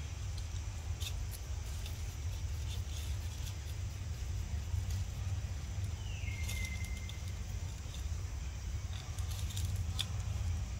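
Dry leaves rustling and crackling in scattered light clicks as macaques pick through the leaf litter, over a steady low rumble. About six seconds in comes one short high call that drops in pitch, then holds level for about a second.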